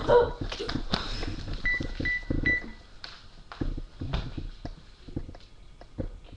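Three short, evenly spaced electronic beeps from a small device, about a second and a half in, among scattered clicks and knocks of handling.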